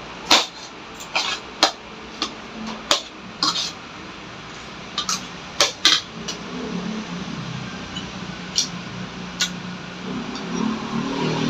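Metal spoon and fork clinking and scraping on a ceramic plate during a meal: a string of sharp clicks over the first six seconds, then only a couple more. Near the end comes a drink from a glass of water.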